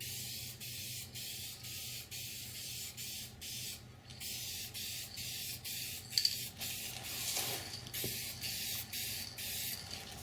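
Aerosol spray-paint can hissing in a run of short bursts, with a sharp click about six seconds in.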